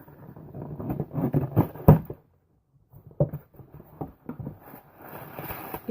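Hands opening a shipping box and handling its packaging: irregular rustling, crinkling and light knocks of cardboard and paper, broken by a brief total silence a little after two seconds in.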